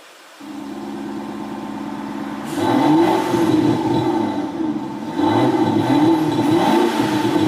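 Mercedes-Benz CLA (C118) engine note through its active sound system: a steady idle comes on about half a second in, then the engine is revved several times from about two and a half seconds on, the pitch rising and falling with each blip.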